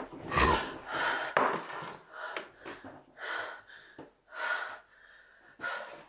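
A young woman breathing heavily and unevenly, a run of short gasping breaths about once a second.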